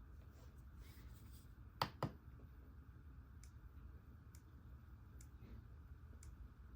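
Scattered clicks from an RK Royal Kludge S98 mechanical keyboard: two sharp clicks close together about two seconds in, then four faint single clicks spaced about a second apart, over a low steady hum.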